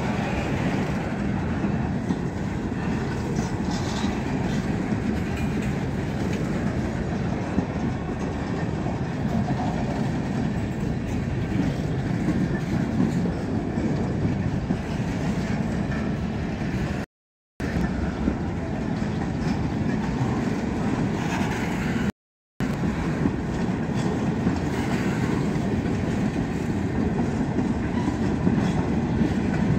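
CSX freight train of boxcars and covered hoppers rolling past close by: a steady rumble with wheels clattering over the rail joints. The sound drops out twice for a split second about two-thirds of the way through.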